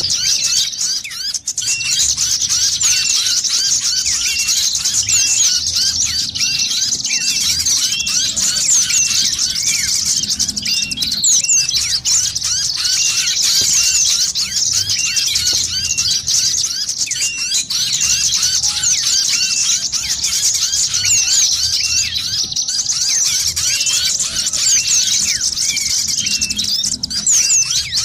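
A dense chorus of small birds chirping rapidly and without a break. It is high-pitched, with a short note repeated over and over a little lower down. This is a pikat lure call used to draw small wild birds in.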